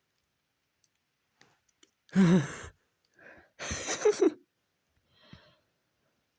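Two loud, breathy sighs from a person's voice, about two and four seconds in, with a fainter breath near the end and a few faint clicks.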